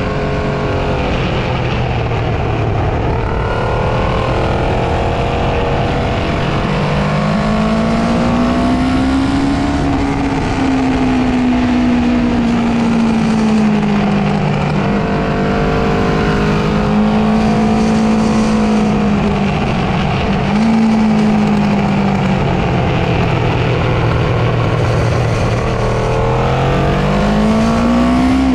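Honda CB500's parallel-twin engine under way on track. Its note climbs and falls with the throttle through corners and straights, dips sharply once about two-thirds through, and rises again near the end, over a constant rush of air noise.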